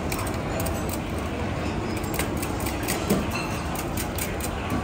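Steady rumbling noise of a busy kitchen around a steaming noodle cooker, with a few light metal clinks about two and three seconds in and again near the end as wire noodle strainer baskets are handled against the pot.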